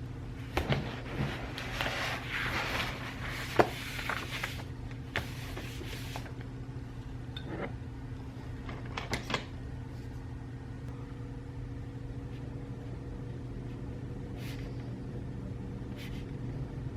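A steady low hum runs throughout. Over it come rustling and handling noises with several sharp clicks and knocks in the first few seconds, the loudest about three and a half seconds in, then scattered clicks later.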